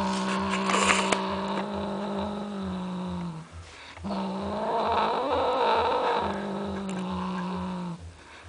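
Domestic cat growling with a wristband held in its mouth, guarding it: two long, low growls, the second swelling and wavering in its middle before settling again.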